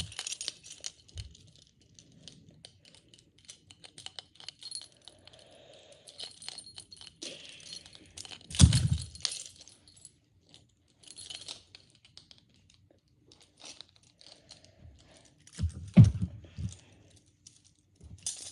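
Metal handcuffs clinking and jangling as the wrists move in them, with small clicks throughout and two louder knocks, about nine seconds in and again near the end.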